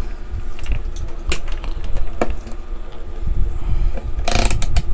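Motorcycle with a really loud muffler running outside, heard as a steady low rumble, with a few light clicks and a short burst of noise near the end.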